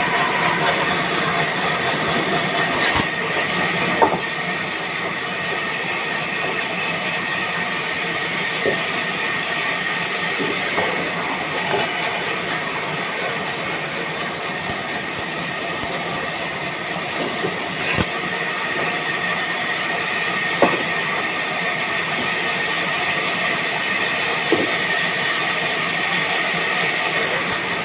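Band saw machine running and cutting wood: a steady, loud hiss with a faint high whine, broken by a few sharp knocks.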